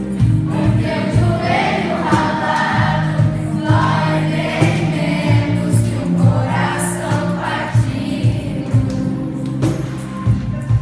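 A choir singing with instrumental accompaniment, in phrases of a few seconds each over sustained low notes.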